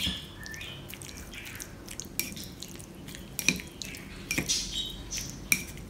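Wooden chopsticks stirring marinated raw chicken pieces in a small ceramic bowl, with a few scattered light clicks of the chopsticks against the bowl and soft wet sounds of the meat.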